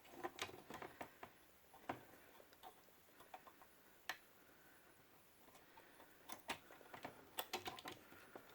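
Faint, irregular clicks and taps of a scoring blade being fitted onto a paper trimmer, with a quick cluster of clicks near the end.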